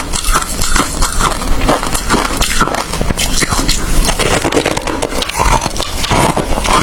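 Ice being chewed close to the microphone: a loud, unbroken run of crisp crunches and cracks.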